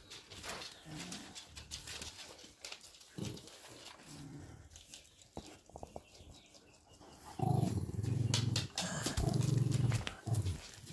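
A dog's low rumbling, in three stretches over the last three seconds or so, the middle one breaking off and starting again.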